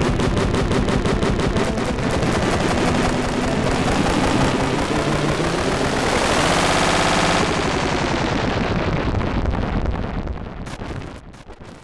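Live electronic glitch music played on a controller: a rapid stuttering, machine-gun-like beat repeat with a filter sweep that rises and falls midway, fading out near the end.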